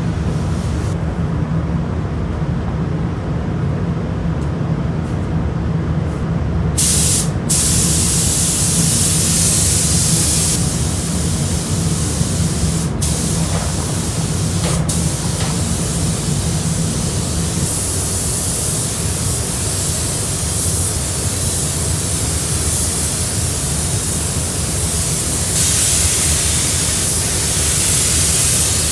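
Paint spray gun hissing in long passes, with short breaks between them, over a steady low hum. The hiss starts about seven seconds in.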